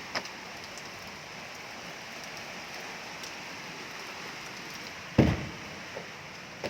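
Heavy rain falling steadily, with a single loud thump about five seconds in.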